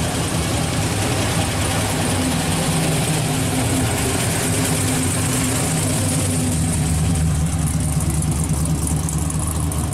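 1969 Chevrolet Camaro SS's V8 running at low speed with a steady exhaust note as the car rolls slowly past and away; the higher part of the sound dims over the last few seconds.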